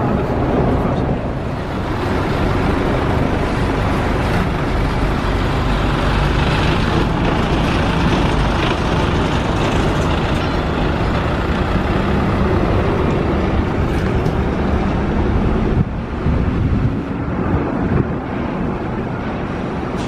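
Truck engines running with steady road-traffic noise; a low engine note slowly rises in pitch past the middle.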